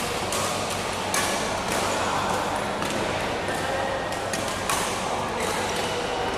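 Badminton rackets striking a shuttlecock in a doubles rally: repeated sharp hits at uneven spacing, over a steady background of voices.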